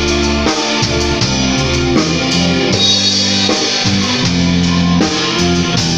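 Live band playing amplified rock-style music: electric guitars over a drum kit, with steady drum hits and held chords that change every half second or so.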